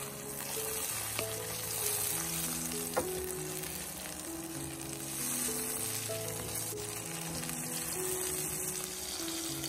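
Food frying in hot oil with a steady sizzle, and a single sharp click about three seconds in, under soft background music.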